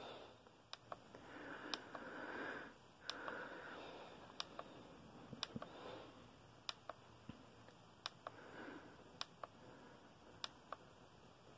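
Faint, sharp clicks about once a second from a button on an LED face mask being pressed to step through its faces, with soft breathy rustling in between.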